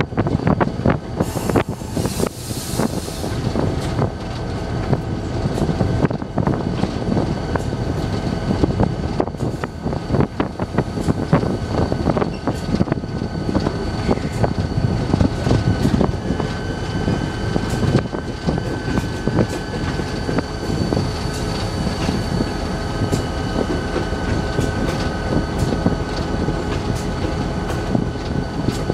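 CNW 6847 diesel locomotive under way, heard from inside its cab: a steady engine rumble with a constant whine, and irregular clacking of the wheels over the rail joints. A short hiss a second or so in.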